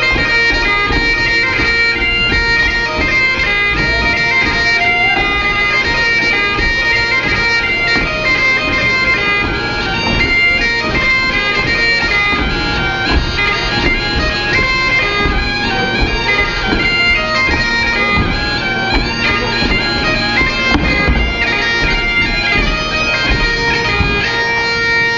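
Highland bagpipes playing a dance tune, the melody moving quickly over steady held drones.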